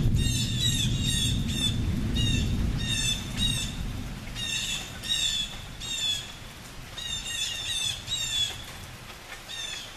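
A bird gives short pitched calls again and again, several in quick succession, in clusters throughout. Under them a low rumble of distant thunder fades away over the first few seconds.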